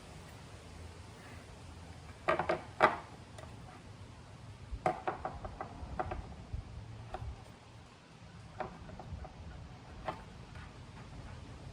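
Irregular clicks and knocks of hard parts being handled as a breather hose is worked back into a motorcycle's air cleaner backing plate. A quick cluster of sharper knocks about two and a half seconds in is the loudest, followed by fainter scattered clicks.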